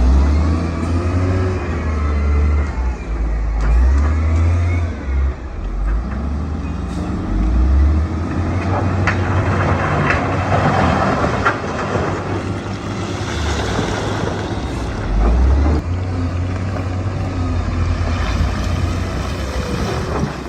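Heavy diesel construction machinery at work: engines running and revving up and down, with a few clanks and a stretch of hissing noise about halfway through.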